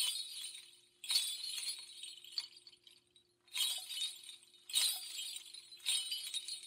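A run of bright, glassy clinking crashes, about one every second or two, each ringing and fading out over about a second, over a faint steady hum.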